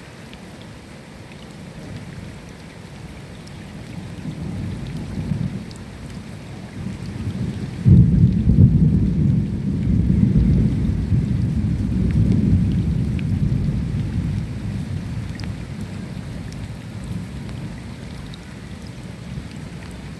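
Steady rain with scattered drop ticks, and a roll of thunder: a low rumble builds, breaks into a sudden loud peal a little before the middle, rolls on for several seconds and fades away.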